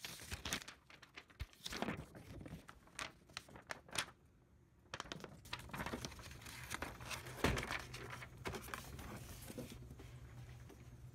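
Sheets of paper rustling and sliding as they are handled and laid flat on a flatbed scanner's glass, with small knocks and clicks of handling and one sharper knock past the middle. A steady low hum comes in about halfway through.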